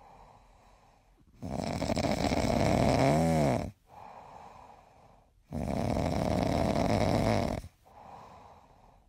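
A sleeping dog with a tennis ball in its mouth, snoring: two long, loud snores about four seconds apart, with softer breaths between them. The first snore ends in a short squeak that rises and falls.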